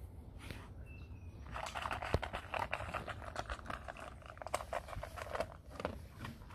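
A dog crunching dry kibble from a stainless steel bowl, a dense run of crunches and small clicks of kibble against the metal starting about a second and a half in.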